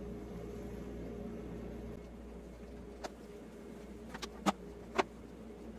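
Honeybees buzzing steadily around open hive frames, with a few sharp knocks from the frames and hive equipment being handled, the loudest two near the end.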